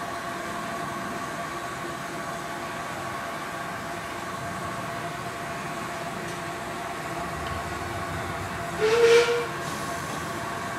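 Miniature railway locomotive running with a steady hum, and one short toot of its whistle about nine seconds in.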